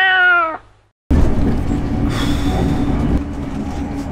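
The tail of a long cat meow, ending about half a second in. After a brief gap comes the steady rumble of a moving train heard from inside the carriage, with a low hum under it.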